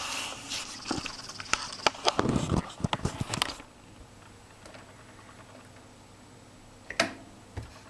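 Rustling and a quick run of clicks and knocks for about three and a half seconds, then quiet, with one sharp click about seven seconds in and a softer one just after.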